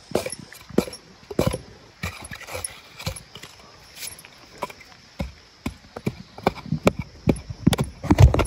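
Metal-headed pick with a wooden handle striking and scraping into gravelly white clay, digging it out in a string of irregular chopping strokes that come faster and louder near the end.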